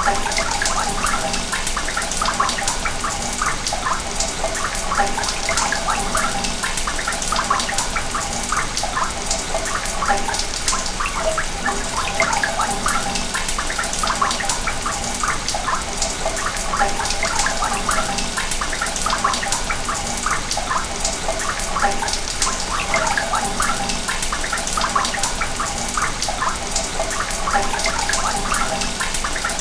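Sewage water running through pipes: a steady rushing flow laced with many quick bubbling blips.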